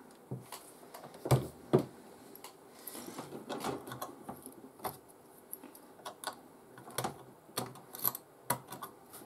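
Irregular clicks and light clatters of small tools and grinding bits being handled and set down, with two louder knocks about a second and a half in.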